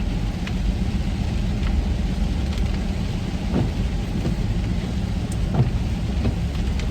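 Steady road and engine rumble inside a van's cabin while driving in rain, with a few scattered faint ticks.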